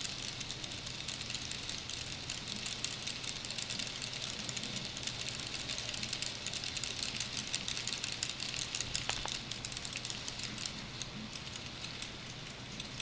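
N-scale model coal train of gondola wagons rolling past on the track: a dense, rapid clicking and rattle of the small wheels on the rails over a steady low hum. The clatter eases a little near the end as the last wagons pass.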